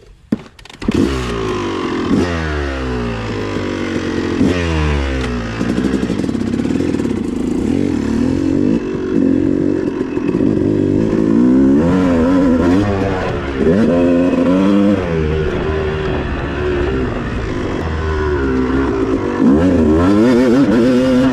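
250cc two-stroke motocross bike engine revving hard, its pitch climbing through the gears again and again, holding high for a stretch in the middle, then rising and falling with throttle changes.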